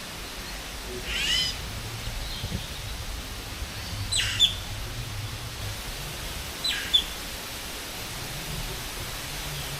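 Bird calls in an aviary: three short, sweeping, high-pitched calls about a second, four seconds and seven seconds in, over steady background noise.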